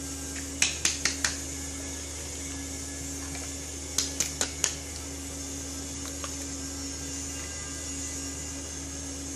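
Four quick sharp taps, then four more about three seconds later: a hand striking the heat-sealed plastic film lid of a water-filled plastic cup, which shows that the seal holds. A steady low hum runs underneath.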